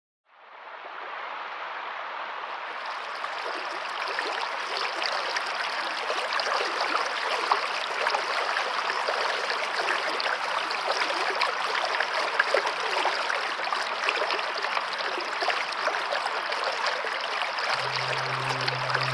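Steady flowing water with a dense splashing, trickling texture, fading in over the first second. About a second before the end, a steady low note of background music comes in underneath.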